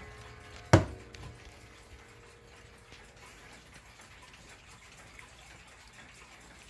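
The last ringing of a wall clock's chime rods fades away, cut across about three quarters of a second in by a single sharp knock. Faint clock ticking follows.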